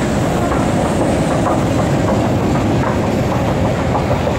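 Loud, steady rumbling noise of metro machinery in an underground station, with a faint rhythmic clatter running through it.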